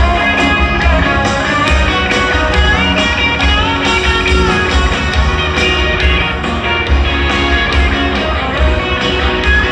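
Live rock band playing through a stadium PA, heard from the stands: a steady drum beat, heavy bass and guitar.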